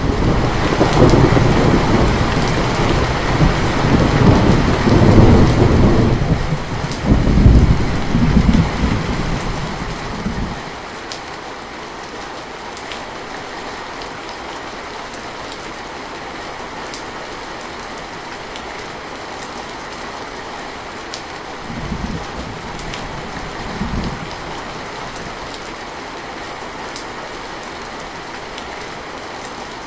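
Steady rain with a thunderclap right at the start that rolls on as rumbling thunder for about ten seconds. After that the rain goes on alone, with two short, weaker rumbles of thunder near the end.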